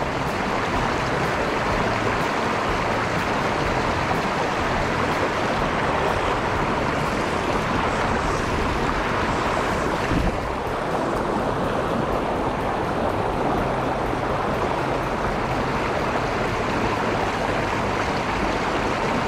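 Shallow rocky creek rushing over stones close to the microphone, a steady wash of water. A single brief knock comes about halfway through.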